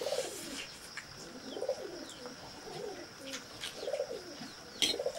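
A pigeon cooing repeatedly, low rising-and-falling calls every second or two, with a utensil clinking on a metal plate near the end.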